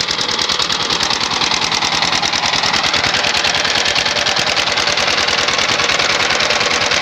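Single-cylinder S-195 diesel engine running steadily with a rapid, even knocking beat. It is blowing heavy smoke out of its crankcase breather and has lost power, a fault the mechanic traces to worn main bearings.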